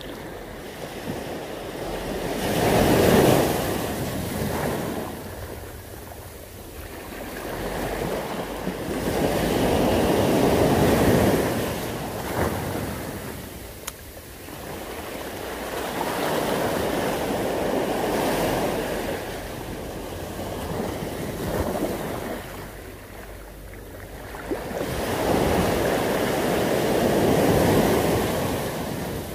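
Sea waves breaking and washing over a stony shore. Four surges a few seconds apart, each swelling and then ebbing away.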